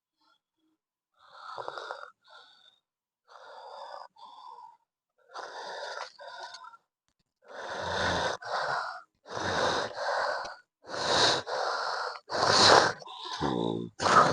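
A person's heavy, rasping snore-like breathing, in quick pairs of breaths about every two seconds, growing louder. A low voiced groan comes near the end.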